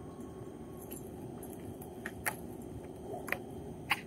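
Skateboard wheels rolling on asphalt, with a few sharp clacks of the board from about halfway in, the last near the end as the tail is popped for a trick.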